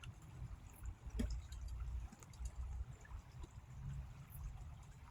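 Faint creek water trickling, with a few small ticks and an uneven low rumble underneath.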